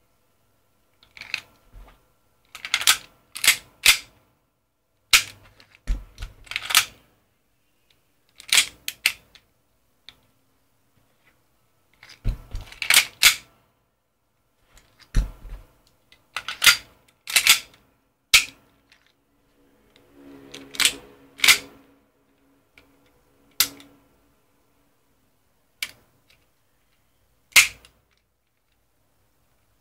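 WE Knight Hawk gas-blowback airsoft pistol, a 1911-style handgun, being worked by hand: sharp metallic clacks of its slide and action, some single and some in quick groups of two or three, at uneven intervals.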